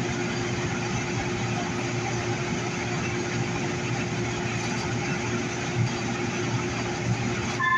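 Running noise inside a Metro A Line light rail car moving along elevated track: a steady rumble with a constant hum and mid-pitched tone. A short chime-like tone starts right at the end.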